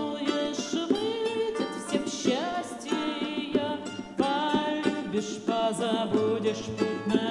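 Live acoustic band music between sung lines: strummed acoustic guitars and a pair of hand drums playing, with a melodic line over them.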